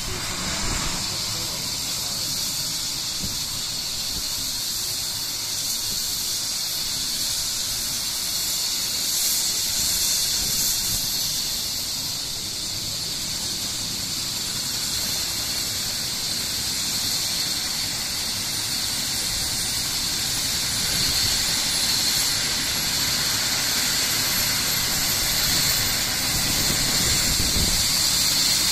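Bell 427 helicopter's Pratt & Whitney PW207D turboshaft engines starting up: a steady high hiss and whine, with a thin whistle slowly rising in pitch in the second half as the turbine spools up.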